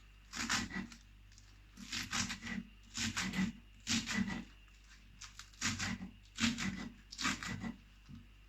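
Knife slicing vegetables into small pieces: about seven short runs of quick cutting strokes with brief pauses between them.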